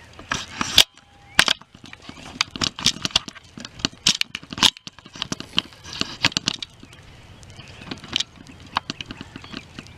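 A rapid, irregular run of sharp clicks and knocks, like close handling of gear.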